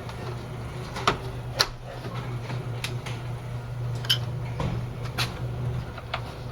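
A few separate sharp plastic clicks and knocks, about five over several seconds, as retaining clips are pushed back onto the radiator fan shroud, over a steady low hum.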